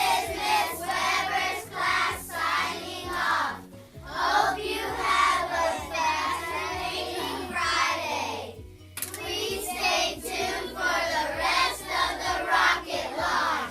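A class of children singing their school song together, in phrases with short breaks about 4 and 9 seconds in.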